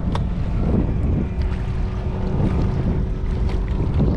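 Bass boat's outboard motor running steadily at low speed, a constant low hum, with wind buffeting the microphone.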